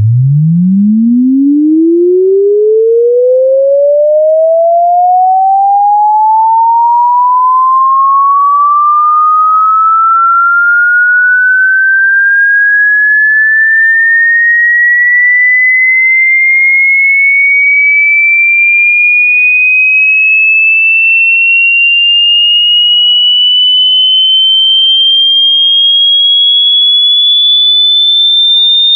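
A pure electronic sine tone sweeping steadily upward in pitch, from a low hum to a high whistle. It rises fast at first and then more and more slowly, at an even, loud level.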